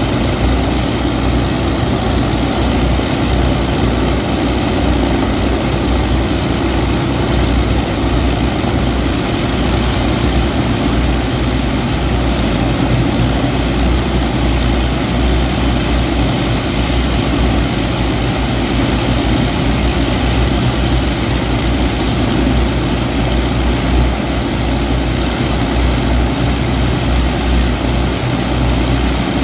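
Avro Lancaster's Rolls-Royce Merlin V12 piston engines running steadily at idle with the bomber standing still, a deep even throb with propeller noise.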